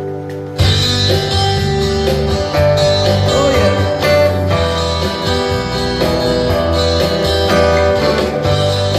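Acoustic guitar playing an instrumental break between sung verses. The sound fills out and gets louder about half a second in.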